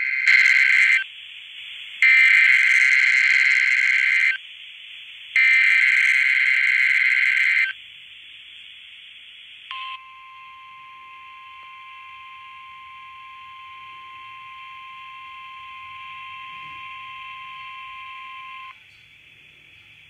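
Emergency Alert System test received on a scanner radio: three bursts of warbling digital header tones, the first short and the next two about two seconds each. After a pause, a single steady alert tone sounds for about nine seconds, over constant radio hiss.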